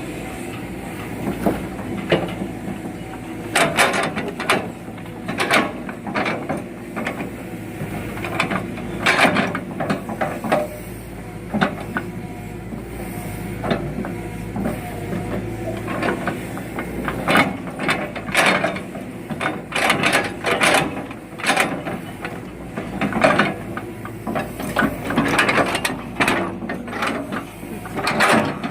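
Excavator diesel engine running steadily under repeated sharp clanks and knocks as rubberwood logs are gripped and loaded onto a truck, some knocks coming in quick clusters.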